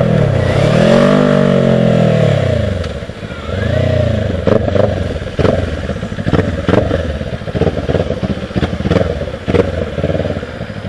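Kawasaki Ninja 400's parallel-twin engine rising and falling in pitch in two quick swells, then a smaller one about four seconds in. After that it runs low and steady while a string of sharp knocks and clacks sounds over it.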